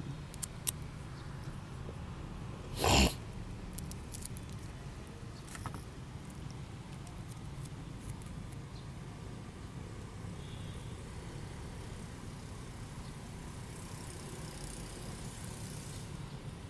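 Hands handling plastic grafting tape while wrapping an adenium graft: faint crinkles and clicks, with one short, loud rustle about three seconds in, over a steady low hum.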